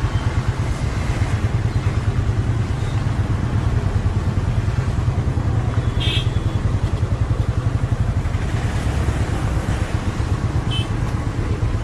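Motorcycle engine running steadily at low speed with a pulsing low rumble, heard from the rider's seat in traffic. A short high-pitched beep sounds about six seconds in and a briefer one near the end.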